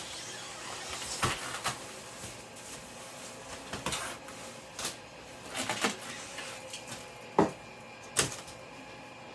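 A string of knocks, clatters and scrapes from packing being handled and pulled out of a 3D printer's shipping box, cardboard and styrofoam included. The sharpest knock comes about seven seconds in.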